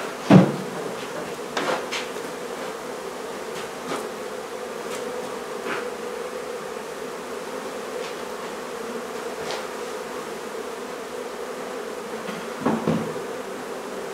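A mass of honey bees buzzing in a steady, even drone from an opened hive. A few knocks cut through it: a loud one about half a second in, another near two seconds, and two more close together near the end.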